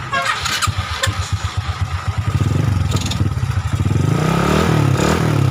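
Motorcycle engine running through a Spec V aftermarket exhaust pipe, idling with a pulsing beat, then revved up and let back down twice in the second half.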